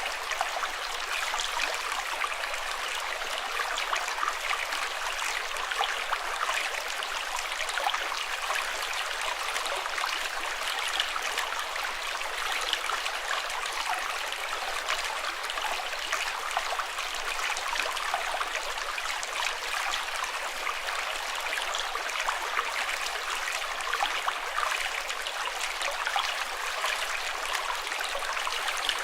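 Running water flowing steadily, an even rush dense with tiny splashes and gurgles.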